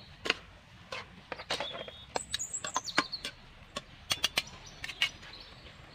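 Metal spatula and ladle clinking and scraping against a metal wok as stir-fried noodles are tossed: a string of sharp clicks. A high, thin chirp sounds about two seconds in.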